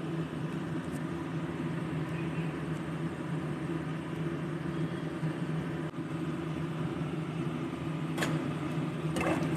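A steady low mechanical hum in a kitchen, with one sharp metal clink about eight seconds in and a little light clatter near the end, as the fried chicken is spooned into the pressure cooker.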